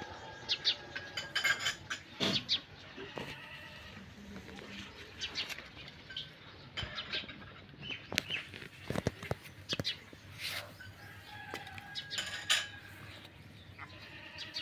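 Goats and kids bleating a few times, with scattered sharp clicks and knocks of handling and movement among them.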